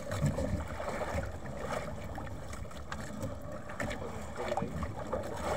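Steady noise aboard a small outrigger fishing boat at sea: wind and water with a low rumble. Light scattered knocks and rustles come from a gill net being hauled in by hand over the side.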